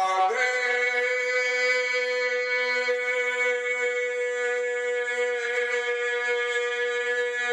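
Instrumental intro of a devotional bhajan: one held note that stays steady, rich in overtones, sounding as a drone with no singing yet.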